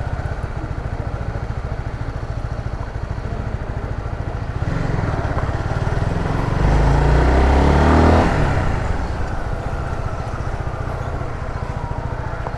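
Honda CBR motorcycle engine idling with a steady, fast low pulse. About five seconds in, another vehicle comes close and passes, loudest about eight seconds in, then fades back under the idle.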